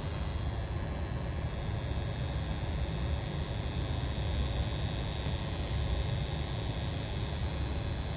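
LG Whisen Tower air conditioner running with a steady hiss and a low, rough crackling buzz, which the owner takes for electrical sparking inside the unit.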